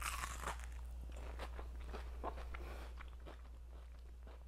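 A bite into a deep-fried mashed-potato puff, then chewing with small, irregular crunches of its thin crisp crust, over a low steady hum.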